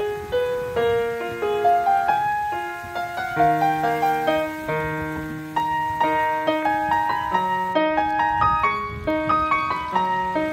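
Background piano music: a gentle melody of single notes over lower sustained notes.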